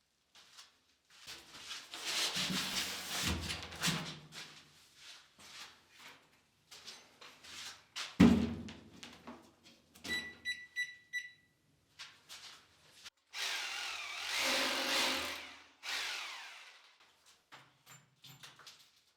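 Work noises of knocks and clatter from handling tools and parts, with one heavy thump about eight seconds in. A quick run of five or six high electronic beeps follows about two seconds later, and a rushing noise lasts a few seconds after that.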